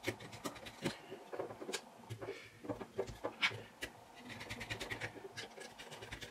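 Small metallic clicks, taps and scrapes of a small screwdriver working the screws of a Zero Tolerance 0560 folding knife as it is taken apart and handled on a tabletop, with a quick run of fine ticks a little before the end.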